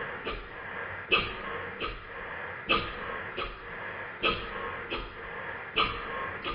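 Stuart No. 9 horizontal engine running slowly on compressed air, its exhaust puffing in an even rhythm of about four beats every three seconds, alternately louder and softer. The even beats show that the valve timing is now corrected by the shortened slide valve.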